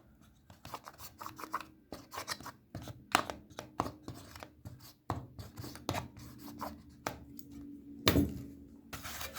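Handling noise of a small plastic remote control: irregular clicks, taps and rubbing, with one louder clack about eight seconds in.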